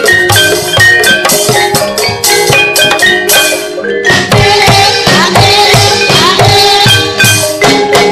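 Javanese gamelan dance accompaniment: struck tuned metal or bamboo keys playing a repeating rhythmic pattern over kendang hand-drum strokes, with a short lull about four seconds in before it carries on.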